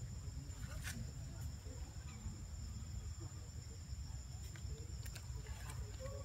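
Insects droning in two steady high tones over a low rumble, with a few faint clicks.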